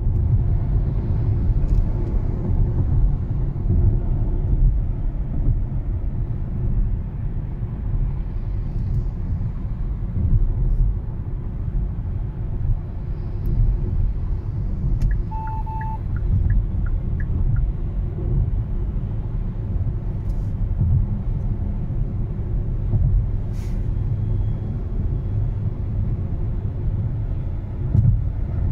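Steady low road and tyre rumble with wind noise inside the cabin of a Hyundai Ioniq 5 electric car cruising at about 83 km/h. A brief beep sounds about halfway through.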